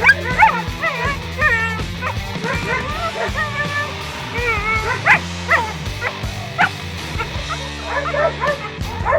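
West Siberian laika barking in short, high yips and yelps, many times in quick runs, over background music.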